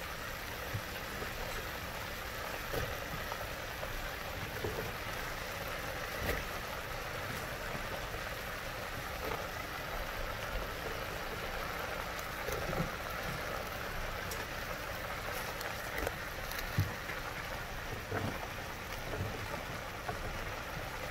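Peppers, onions and freshly added yellow squash sautéing in olive oil in a steel pot: a steady sizzle with a few faint pops.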